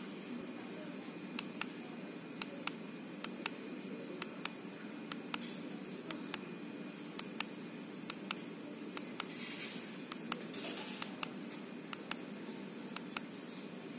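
Plastic push-button on a weather station display console pressed and released over and over, giving sharp clicks about once a second, often as a pair. A faint rustle twice near the middle.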